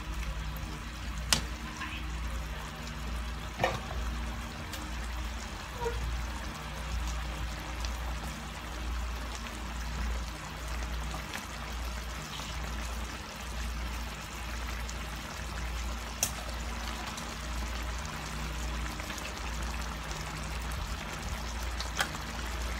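Chicken and mushroom stew simmering and bubbling in a frying pan on a gas stove, over a steady low hum. A few sharp clicks of the stirring utensil against the pan, two in the first few seconds and two more later.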